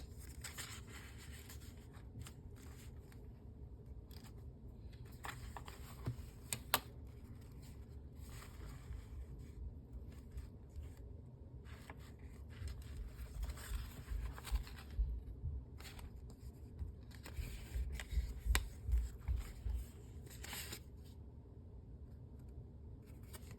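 Paper pages of a handmade junk journal rustling and scraping as they are turned and handled, with scattered light clicks and some soft low bumps in the middle stretch.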